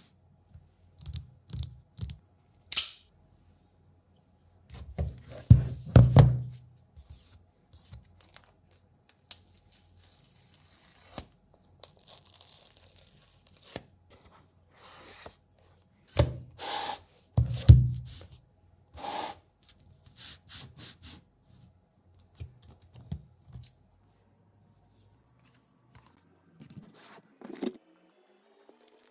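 Unboxing an iPhone 14 Pro Max box by hand: clicks and knocks of the box being handled, two dull thumps, and tearing of the box's seal strips as they are pulled off, heard as two rasps about ten and twelve seconds in.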